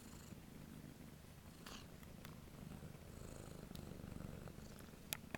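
Tabby kitten purring steadily while being stroked, close to the microphone. A few brief clicks sound over the purr, the sharpest near the end.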